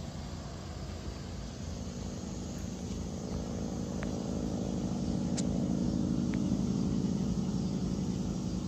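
A motor vehicle's engine running with a steady low hum over road noise, growing louder through the middle of the stretch.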